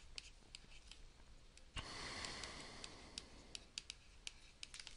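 Faint, irregular ticks of a pen stylus tapping and sliding on a tablet PC screen during handwriting, with a soft hiss lasting about a second and a half, starting about two seconds in.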